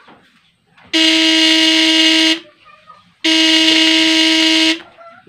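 Homemade battery-powered fish shocker's inverter transformer buzzing with a loud, steady pitched hum. It is switched on twice for about a second and a half each time while its output voltage is tested.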